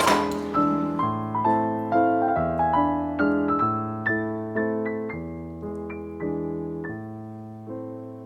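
Background piano music: a slow, gentle melody of struck notes that each ring and fade, with a short noisy burst right at the start. The music gradually grows quieter toward the end.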